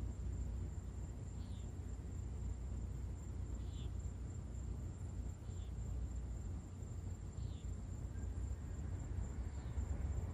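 Night insects: a steady high-pitched trill with a short chirp about every two seconds, over a steady low rumble.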